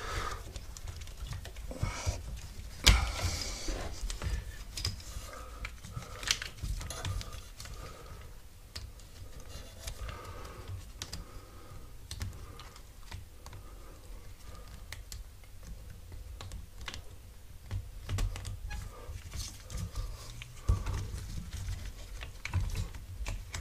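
Irregular small clicks and taps of hands handling wiring and connectors while joining the motor wires of a mobility scooter, with a sharper knock about three seconds in.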